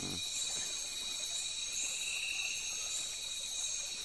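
Chorus of night insects in the forest: a steady, shrill trilling held at several high pitches at once.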